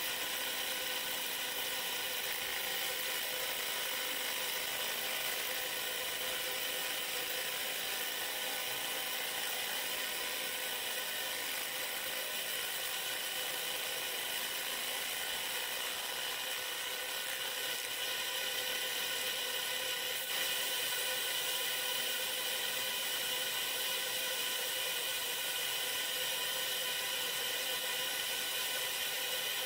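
JPT MOPA M7 100W 3D fiber laser marking machine deep-engraving aluminum: a steady hissing buzz with several steady whining tones, stepping slightly louder about two-thirds of the way through.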